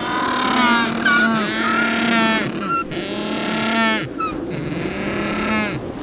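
Chinstrap penguins calling: several overlapping harsh, rapidly pulsing calls, some held for a second or two on a steady low note.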